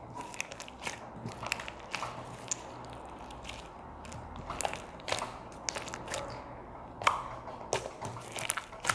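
Homemade slime, made from white glue, shaving foam and borax water with moisturizer just worked in, being squeezed and worked. It gives irregular sticky clicks and small squelches, with a few sharper pops about 7 seconds in and near the end.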